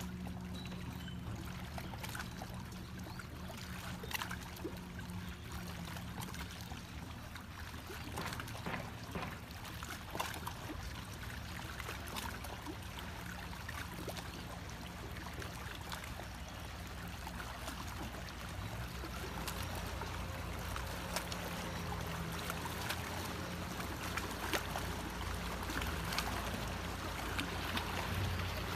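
Small waves lapping and trickling among shoreline rocks and a wooden dock, with many small ticks and splashes over a low steady hum.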